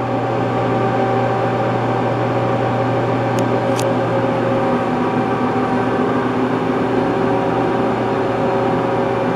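A 40-gallon Premier dual-shaft mixer running steadily on test: a constant electric-motor hum and whir as the high-speed disperser shaft spins, with liquid churning and spraying in the mix can.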